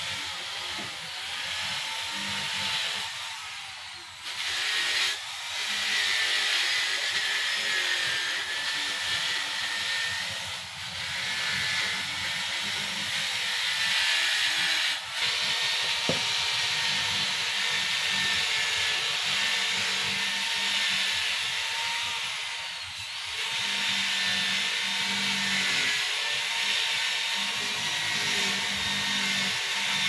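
Steady whirring and hiss of a motor-driven machine, with a few brief dips in level.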